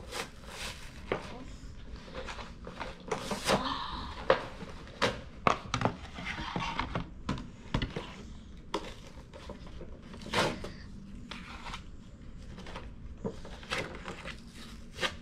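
Toy monster truck packaging being torn open by hand: cardboard and a plastic blister crinkling and tearing, with scattered clicks and knocks.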